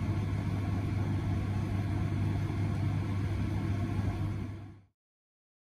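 A steady low rumble and hum fades out to silence about five seconds in.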